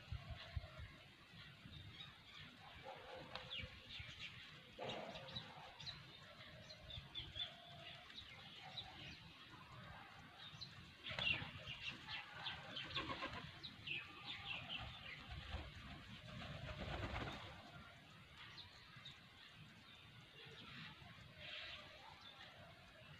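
A flock of birds at a feeding spot, chirping and calling faintly, with brisk runs of chirps in the middle and a few wing flaps.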